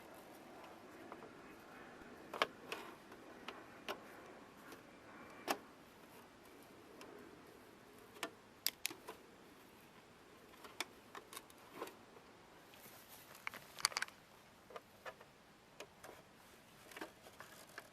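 Scattered, irregular clicks and light knocks of hand tools and small metal parts as a rooftop RV air conditioner is taken apart, with a short cluster of rattling clicks past the middle.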